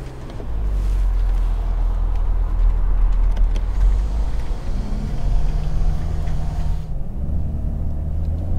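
The 3.0-litre six-cylinder petrol engine and tyres of a 2020 Mercedes-Benz E450 Cabriolet rumbling, heard from inside the cabin with the roof closed, as the car pulls away and drives off. The rumble comes up about half a second in, and the engine note changes about five and again about seven seconds in.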